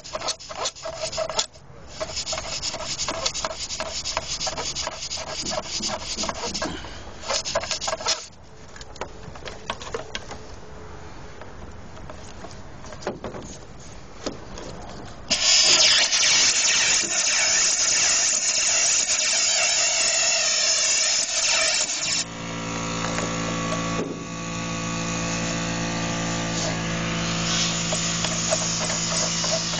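Hammer drill boring into concrete for an anchor-bolt hole, a rapid chattering for about eight seconds. After a quieter stretch, a loud rush like blowing air lasts about seven seconds, then a steady motor hum runs on.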